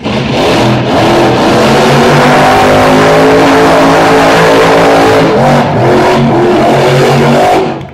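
Monster truck engine revving hard: a few quick swings in revs, then held high and nearly steady for several seconds. The engine note drops away suddenly near the end.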